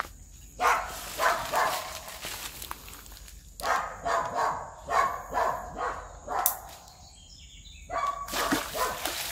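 A dog barking repeatedly in short bursts, about two a second, with a pause in the middle. Near the end there are a few sharp splashes in the water.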